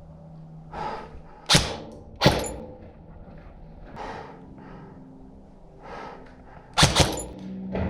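Airsoft gun shots: sharp single cracks, one about a second and a half in and another under a second later, then two in quick succession near the end, with fainter clicks between.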